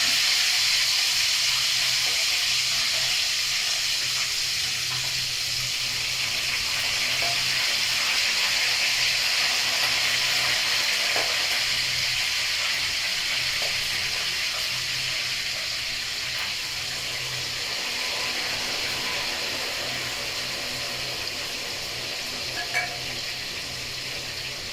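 Marinated chicken pieces deep-frying in hot oil, a steady sizzle that slowly grows quieter as the wet marinade cooks off. A brief tap near the end.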